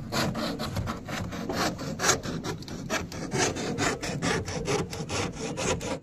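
Hand saw cutting through a black plastic water pipe, with quick, even back-and-forth strokes at about four a second.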